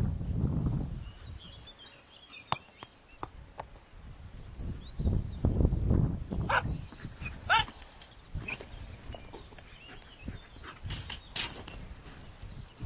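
A dog barks twice, about a second apart, over gusts of wind on the microphone, with a few faint bird chirps.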